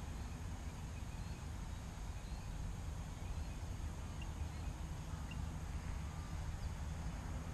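Steady low wind noise on the microphone, with a few faint, short, high bird chirps.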